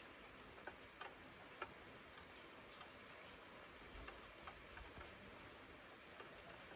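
Light rain: a faint steady hiss with scattered, irregular sharp ticks of single raindrops landing close by, the loudest about a second and a half in.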